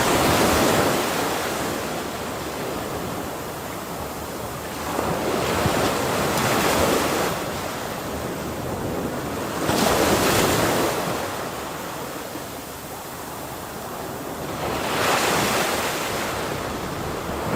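Ocean waves breaking and washing up the shore, with four surges about five seconds apart over a constant hiss of surf, and some wind on the microphone.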